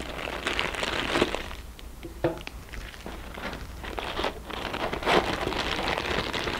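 Pink anti-static plastic bags crinkling in irregular bursts as electronic modules are handled and slid out of them, with a few sharper crackles, the loudest about five seconds in.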